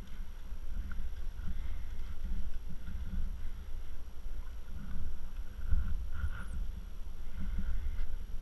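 Wind buffeting the camera microphone, a low rumble that rises and falls, with faint bird calls repeating over it.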